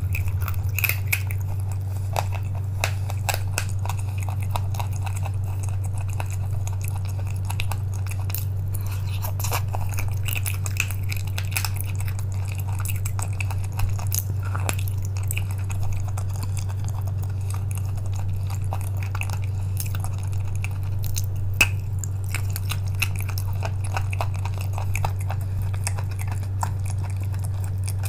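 Chalk being bitten and chewed: many small crunches and crackles, with a few sharper ones, over a steady low hum.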